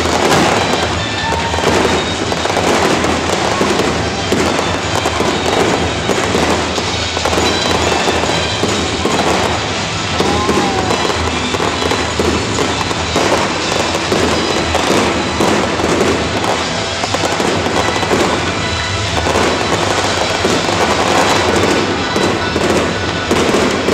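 Fireworks display: many rockets, fountains and shells going off together in dense, continuous crackling and popping.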